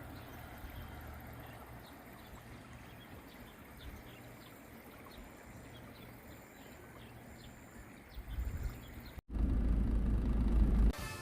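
Faint outdoor ambience with a low steady hum and many short, faint high chirps. About eight seconds in, a loud low rumble on the microphone takes over, breaks off sharply, then comes back louder for the last two seconds.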